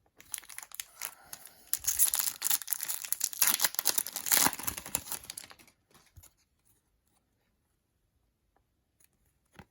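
Wrapper of a trading-card pack being torn open and crinkled for about six seconds, then near silence with a few faint clicks.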